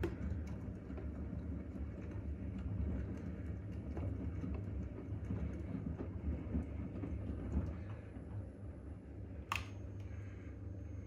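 Front-loading washing machine running a hot wash, its drum turning with a low, uneven rumble of tumbling laundry and small ticks. There is one sharp click about nine and a half seconds in.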